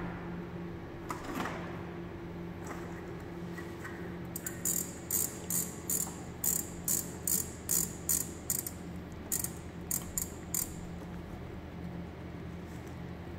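Blister-tape taping machine's tape-guide width knob being turned by hand: a run of short, sharp ratcheting clicks, two to three a second for about six seconds, starting about four seconds in, over the machine's steady hum.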